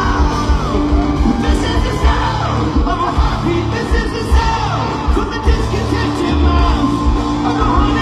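Live rock band playing loudly, with drums, bass and electric guitar, and singing and yells over the music.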